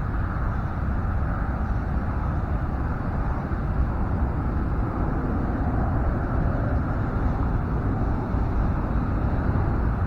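Steady low rumble of outdoor noise with no distinct events, strongest in the deep bass.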